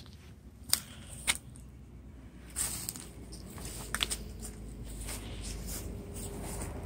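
Soft footsteps on grass and scattered clicks and rustles of a handheld camera being handled, over a low rumble that builds after a few seconds.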